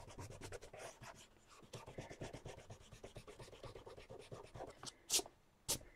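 White block eraser rubbing back and forth on sketchbook paper in quick strokes, erasing pencil lines. Near the end come two short, sharp swishes.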